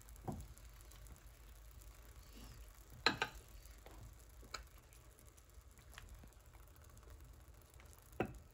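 Bread-pudding custard cooking gently in a buttered frying pan on the stovetop, faintly sizzling, with a few light clicks or knocks, the loudest about three seconds in.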